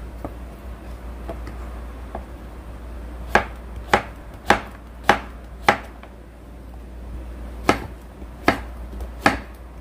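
Chef's knife chopping zucchini on a wooden cutting board: a few light taps, then five sharp knocks of the blade on the board about half a second apart, a pause, and three more near the end.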